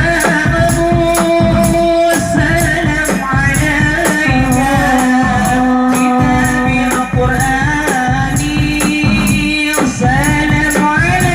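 Hadroh ensemble performing sholawat: voices singing a melody with long held notes over rebana frame drums and jingling percussion keeping a steady beat.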